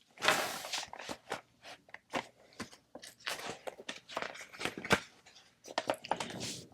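Handling of a hardcover picture book as it is opened and its pages turned: a paper rustle at the start, a run of small clicks and taps, and another rustle near the end.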